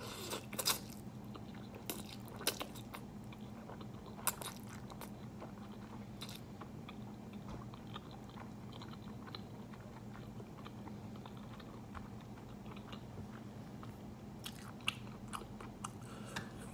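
A person slurping and chewing Chapagetti black-bean-sauce instant noodles, with sharp wet clicks now and then, a cluster near the start, single ones around two and four seconds in, and more near the end. A steady low hum runs underneath.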